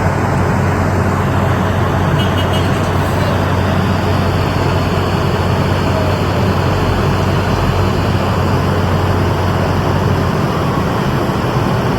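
A machine running steadily and loudly: a dense, even noise with a constant low hum underneath.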